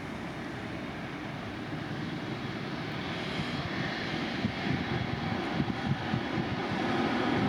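Aircraft engines growing steadily louder as a plane approaches, a rushing noise with a faint whine in it.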